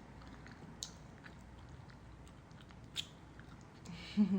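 Chewing gum being chewed close to the microphone: scattered soft, wet mouth clicks and smacks, with two sharper smacks about a second in and about three seconds in. A brief low voiced sound comes from the mouth near the end.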